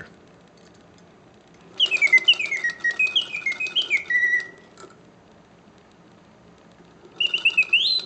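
1950s Karl Griesbaum singing bird cage automaton on its pause setting: the bellows-driven whistle sings a phrase of quick falling chirps ending on a held note, with mechanical clicking under it, stops for about two seconds, then starts a new phrase that ends in a rising whistle. The stop-and-start pause only works when the restored bellows are airtight.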